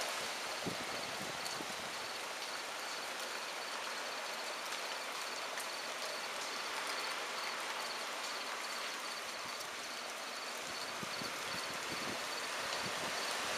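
Steady hiss of hurricane rain and wind tearing through trees and leaves, with low rumbles of wind buffeting the microphone near the start and again toward the end.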